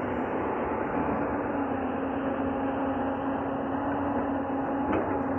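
Hyundai 220-9SH crawler excavator's diesel engine running steadily close by as the machine digs, a constant engine hum with one steady tone.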